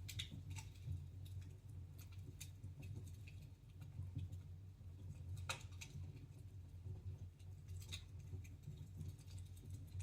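Wood fire burning in a fireplace, crackling with scattered small pops, the sharpest about halfway through and again near the end, over a steady low hum.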